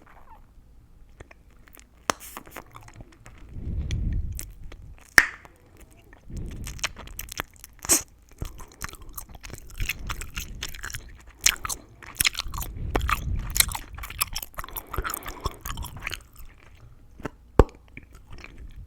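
Gum being chewed close to the microphone: a dense, irregular run of sharp wet clicks and crackles, with a few stretches of low muffled sound from the jaw and mouth.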